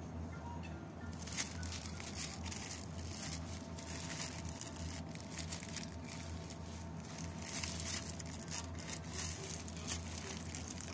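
Irregular rustling and crinkling handling noise over a steady low hum of shop background. Near the end, a plastic-bagged bag of onions is picked up.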